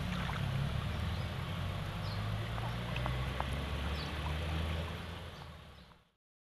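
Water sloshing and trickling in an open-air hot-spring pool under a steady low rumble, fading out about six seconds in.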